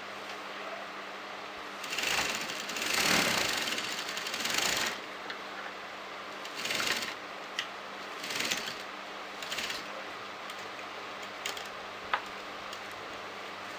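Sewing machine stitching fabric in stops and starts: one longer run of a few seconds, then several short bursts as the fabric is turned and guided, with a single sharp click near the end.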